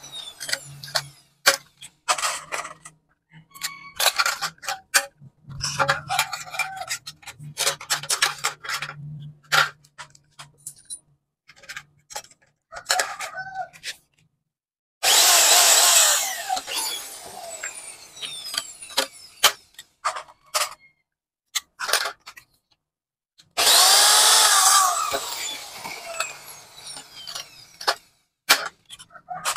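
Cordless drill boring through aluminium profile in two bursts of a few seconds each, about halfway through and again near the end. Between them come repeated sharp clicks and snaps of a hand pop-rivet gun setting rivets.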